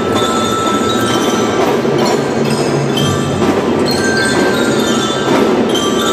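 Children's drum band playing: a bright bell melody over steady marching-drum beats.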